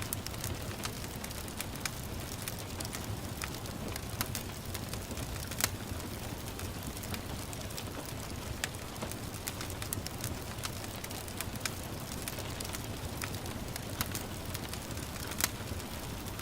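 Wood fire crackling, with irregular sharp pops, over a steady hiss of gentle rain. The loudest pops come about five and a half seconds in and near the end.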